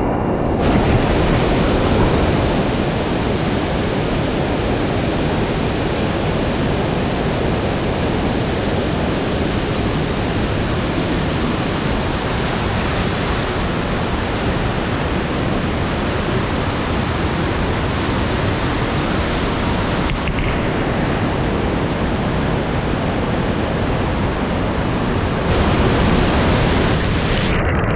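Steady roar of a large waterfall: rushing water heard as an even, unbroken hiss, its tone shifting abruptly a few times.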